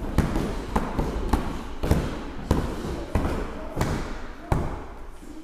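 Gloved punches thudding into a hand-held padded strike shield: about ten blows in quick series, roughly two a second, ending about a second before the end.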